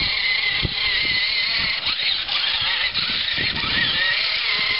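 RC monster truck's motor whining at a high pitch that rises and falls as it is driven across grass, with a few dull low thumps.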